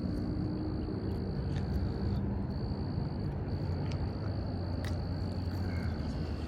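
Outdoor ambience: a steady high-pitched insect trill with brief breaks, over a low steady drone, with a few faint ticks.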